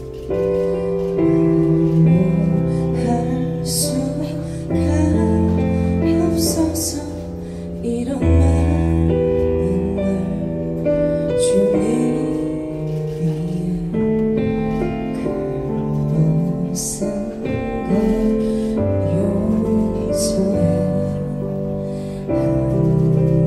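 A woman singing a song into a handheld microphone over an instrumental accompaniment, amplified through the room's sound system.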